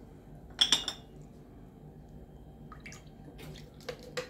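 A porcelain Turkish coffee cup is set down on its saucer with a sharp clink about half a second in. Faint drips of water and a few light knocks follow.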